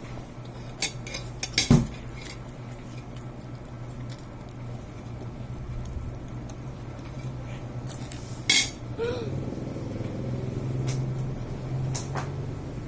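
Cutlery clinking against dishes while eating, a few separate sharp clinks with the loudest about eight and a half seconds in, over a steady low hum.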